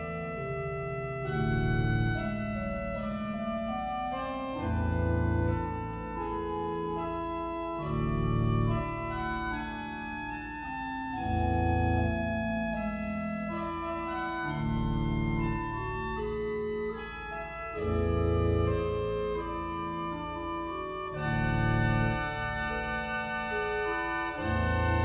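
Two-manual electronic organ being played: sustained chords with a moving melody above, and a deep bass note sounding again about every three and a half seconds.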